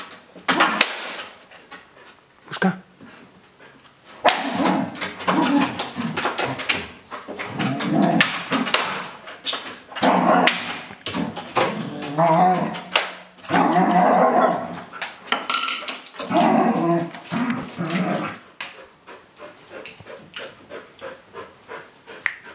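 A dog shoving its food bowl around a hardwood floor, the bowl repeatedly knocking and scraping on the wood. The dog barks and growls through the middle stretch as it plays.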